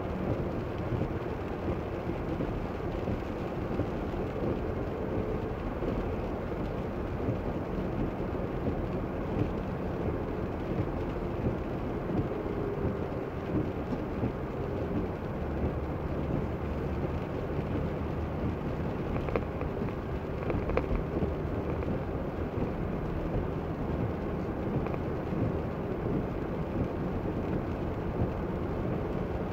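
Steady road noise of a car driving on a wet road, heard from inside the cabin: a low rumble of tyres and engine with rain noise.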